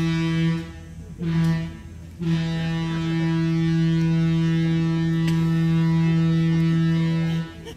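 Train horn sounding in blasts: one ends under a second in, a short blast follows about a second in, then a long steady blast of about five seconds that cuts off near the end.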